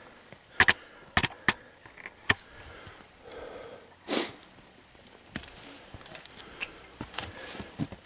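A hiker's footsteps on a forest trail of roots and rocks, giving a handful of sharp knocks in the first couple of seconds. A short sniff comes just after four seconds in.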